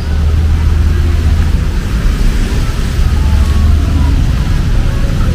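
Heavy rain falling in a continuous hiss, over a steady low rumble.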